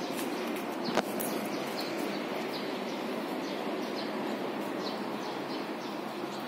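Outdoor ambience: a steady background hiss with small birds chirping now and then, and one sharp click about a second in.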